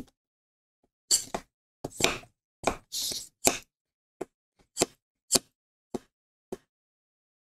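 Small hand plunger pump on the valve of a vacuum storage bag, worked in about a dozen strokes to pull the air out of the bag. The strokes grow shorter and sharper toward the end.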